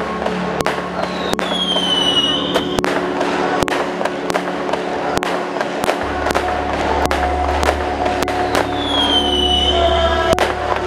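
Fireworks going off in a rapid string of sharp bangs and crackles. Twice a high whistle falls in pitch, about a second and a half in and again near nine seconds. Steady music plays underneath.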